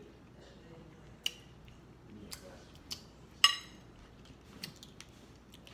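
Eating sounds from a seafood meal: a scattering of sharp clicks and cracks of crab shell and utensils. The loudest, about three and a half seconds in, is a clink with a brief ring.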